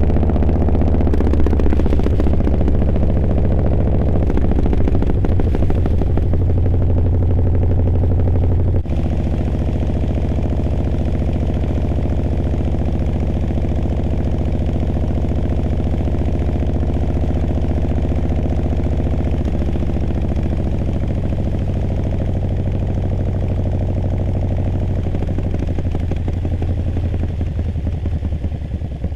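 Harley-Davidson V-twin motorcycle engine running at a steady pace, its note shifting slightly a few times, with an abrupt change about nine seconds in.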